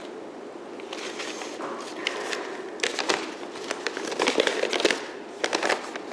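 Rustling and handling sounds: scattered clicks and knocks, with a denser cluster of louder knocks and rustling a little after four seconds in and another short burst near the end.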